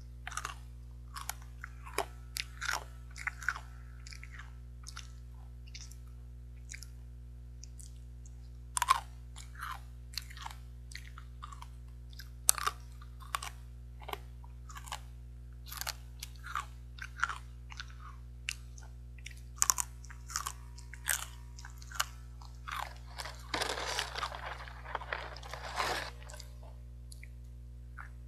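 Crunchy, somewhat hard fried sweet potato sticks being bitten and chewed, in sharp irregular crunches. A few seconds of denser crinkling from the foil snack bag come near the end.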